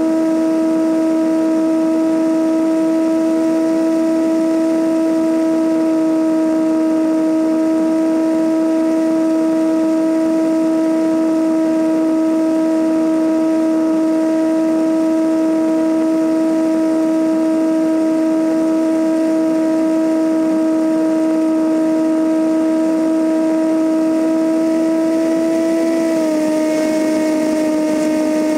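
Cessna 172N's four-cylinder Lycoming engine and propeller droning steadily in cruise, a strong held tone with higher overtones over rushing wind noise. About 26 seconds in, the pitch drops slightly and stays lower.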